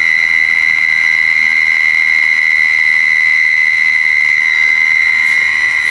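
A loud, steady high-pitched whine that holds one pitch without a break: the unidentified backyard noise, which the listeners liken to a huge cricket or to something stuck in there.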